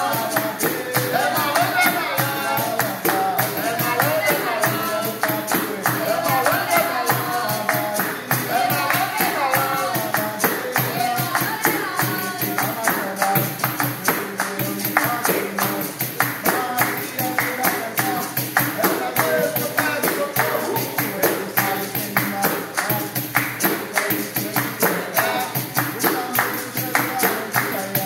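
Capoeira roda music: a berimbau played with voices singing over steady, rhythmic hand clapping and a small percussion instrument.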